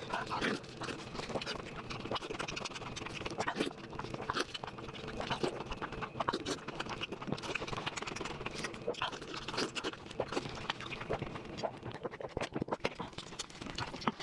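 Close-up eating sounds: food being chewed and crunched, with a dense, irregular run of wet clicks and smacks.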